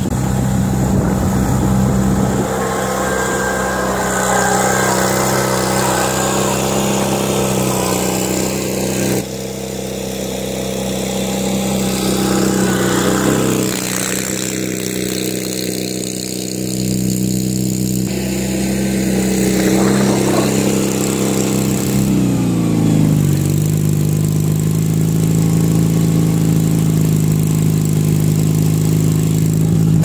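Mustang mini skid steer's engine running steadily under load while pushing snow with a tractor-tire pusher; about two-thirds of the way through its pitch drops and settles lower.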